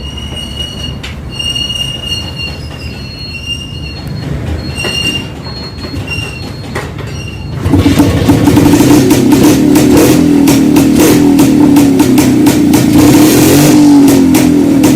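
A high whistling squeal comes and goes. About halfway through, an old Jawa two-stroke motorcycle engine suddenly runs loud and fast with dense, rapid firing.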